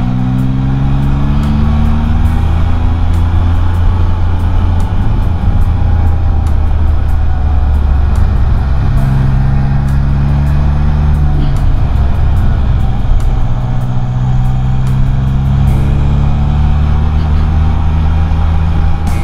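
Can-Am Spyder three-wheeler's engine running under way on the road, its pitch climbing with acceleration near the start, around the middle and again later, over a loud low rumble.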